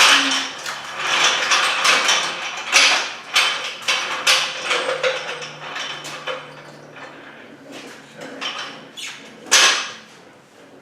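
Irregular scraping and knocking of metal parts being handled around a motorcycle lift, with a burst every second or so and a quieter stretch in the middle.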